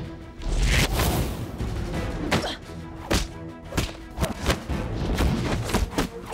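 Hand-to-hand fight sound effects: quick punches and blocks landing as a dozen or so sharp thuds and whooshes of swung arms and robes, over background music.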